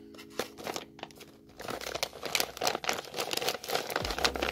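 Crumpled paper bag crinkling as it is picked up and turned over in the hands, starting about a second and a half in, over faint background music.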